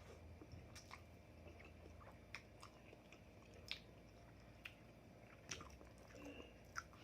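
A person quietly chewing a mouthful of spaghetti, with a few soft, sharp mouth clicks and smacks scattered through.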